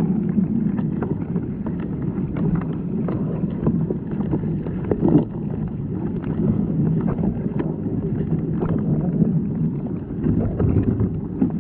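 Muffled, steady rumble of water in a cooler packed with live crawfish being purged, with many small clicks of shells and claws knocking together.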